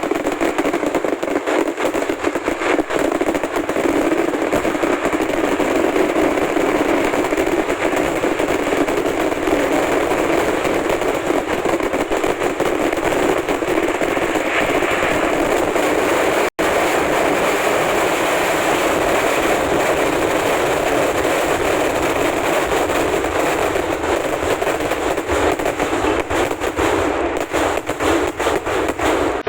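Vedikettu, Kerala temple-festival fireworks: a dense, unbroken barrage of firecracker explosions, the bangs packed so close that they run together into a continuous crackling rattle. It cuts out for an instant a little past halfway.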